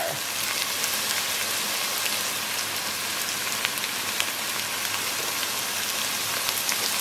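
Ground beef and diced onion sizzling steadily in a Dutch oven: a fine, even crackle with scattered small pops.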